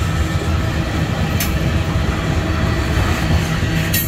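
Freight cars of a manifest train (tank cars, then a covered hopper) rolling past: a steady, heavy rumble of steel wheels on rail, with a sharp click about a second and a half in and another near the end.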